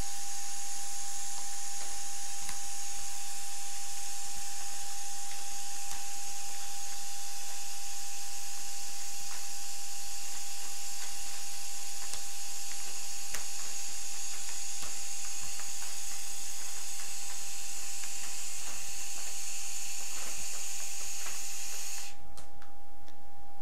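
A steady test tone a little under 1 kHz from a small speaker sealed under a plastic bag, with the loud hiss of a helium jet filling the bag over it. The hiss cuts off suddenly about 22 seconds in, when the gas is shut off, leaving the tone alone.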